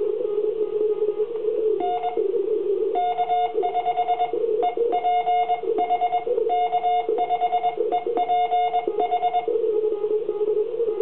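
Morse code keyed from an electronic keyer paddle and heard as the transceiver's beeping sidetone: a single steady tone switched in quick dots and dashes from about two seconds in until shortly before the end. Under it runs a constant pitched hiss of receiver band noise.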